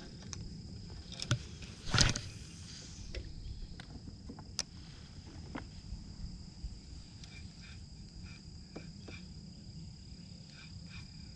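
Insects droning steadily on two even high pitches, with a low rumble underneath and a few sharp knocks, the loudest about two seconds in.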